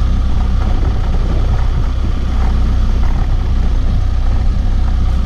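Motorcycle being ridden along a dirt road: a steady, loud rumble of wind on the camera microphone mixed with the running engine.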